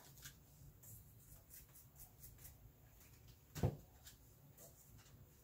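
Faint scratching and tapping of a paintbrush working paint on a paper-plate palette, with one soft knock about two-thirds of the way in.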